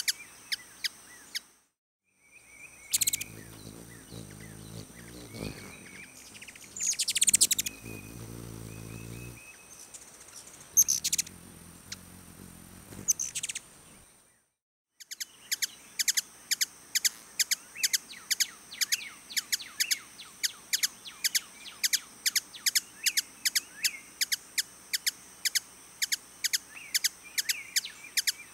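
Ruby-throated hummingbird chip calls: short, sharp, high notes, at first scattered over a low buzzing hum of wingbeats, then in a steady rapid series of about three chips a second through the second half.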